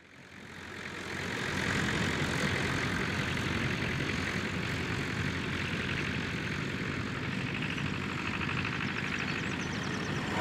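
Classic British tractor engine running steadily as the tractor drives across grass, fading in over the first two seconds.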